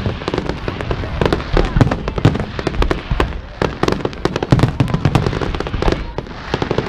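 Fireworks display: aerial shells bursting in quick succession, many booms and crackles overlapping several times a second.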